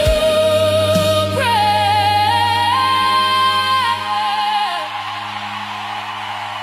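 Worship song closing: a singer holds long wordless notes over sustained chords and a held bass note, then the music fades about four seconds in, leaving a soft hiss.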